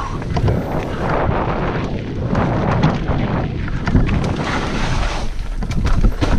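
Mountain bike rattling and knocking repeatedly over wet roots on a fast descent, with wind rushing over the microphone.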